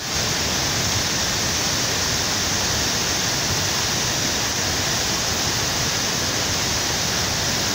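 River in flood, its muddy torrent rushing loudly and steadily and breaking against a footbridge's supports.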